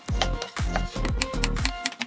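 Background electronic music with a steady beat: punchy kick drum and bass under crisp hi-hat clicks.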